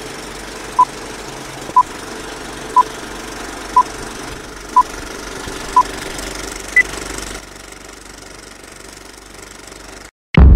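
Film-leader countdown effect: a steady film-projector rattle with six short beeps a second apart, then one higher-pitched beep. The rattle drops off a little later, and after a brief silence a sudden loud, low hit lands at the very end.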